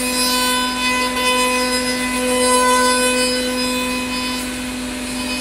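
Spindle of a 5-axis CNC router running at steady speed while its cutter machines a curved wooden chair part: a steady tone with a row of overtones over the hiss of the cut.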